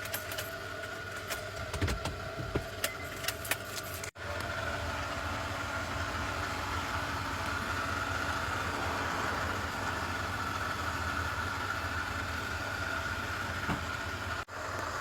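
Scattered sharp clicks and clinks of metal being handled, then, after a cut, a steady mechanical hum of a running machine.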